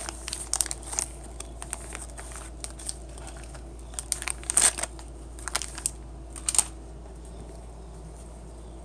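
Crinkling and crackling of plastic cat-treat packaging being handled, in a run of sharp rustles that stops about two-thirds of the way in.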